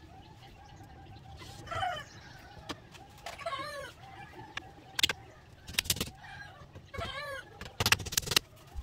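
A hammer strikes the bamboo frame of a chicken cage: single blows near the middle and a quick run of blows near the end. Chickens cluck in between.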